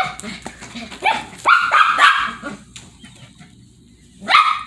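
A Shih Tzu barking in play: a run of short, high, sharp barks, then a pause and one more bark near the end.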